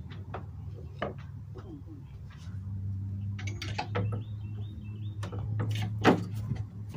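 Hammer driving nails into the wooden boards of a speaker box: a few sharp strikes, the loudest two just after six seconds in and at the very end. A low steady hum runs underneath.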